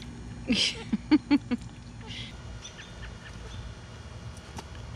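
Newborn Kiko–Nubian cross goat kid nursing from a bottle, making a falling squeal about half a second in, then four quick short nasal calls, with a brief slurping hiss near two seconds.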